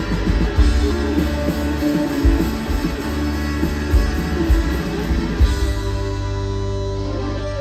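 Rock band music with guitar and drums. About five and a half seconds in, the drums stop and a held chord rings on.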